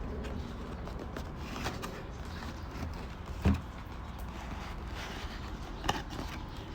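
A small cardboard product box being opened and handled, with rustling packaging noise, a thump about halfway through and a sharper click near the end.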